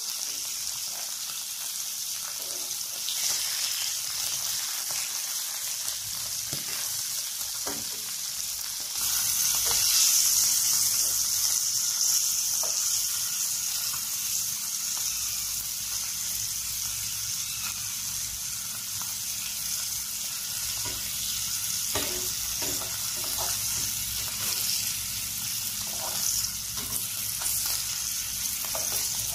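Small whole fish sizzling as they fry in oil in a nonstick pan, the sizzle growing louder about nine seconds in. Light clicks of metal tongs against the pan come now and then as the fish are turned.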